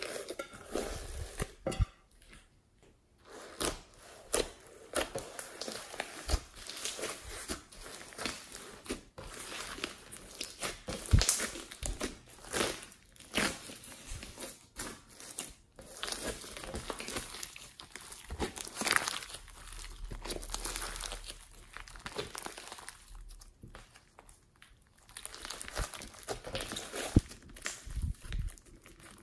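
Hands squeezing, stretching and folding thick slime mixed with small foam beads, giving irregular sticky crackles and pops. There is a short quieter pause a little past two-thirds of the way through.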